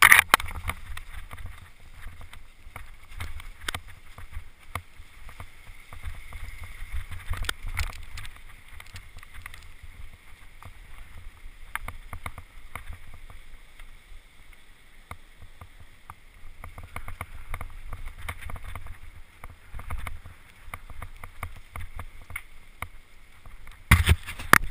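Mountain bike riding down a trail covered in dry leaves: tyres rolling over the leaves and the bike rattling over bumps, with wind rumbling on the microphone. Sharper knocks come right at the start and again near the end.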